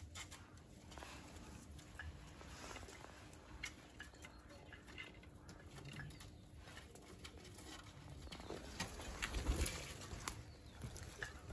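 Feral pigeons pecking at food, heard as quiet scattered taps and clicks, with faint pigeon cooing. A louder low rumble and scuffing comes about nine seconds in.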